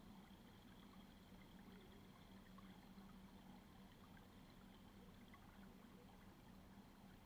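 Near silence underwater: a faint steady low hum and faint water noise.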